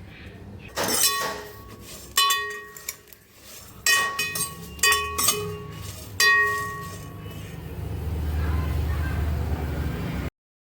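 Metal kitchen utensils clinking against a metal cooking vessel, about six separate strikes at uneven intervals, each ringing on briefly. A low steady hum follows near the end.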